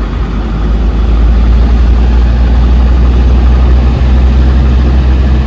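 A car's engine and road noise heard from inside the vehicle as it drives along: a steady, loud low drone that swells slightly about a second in.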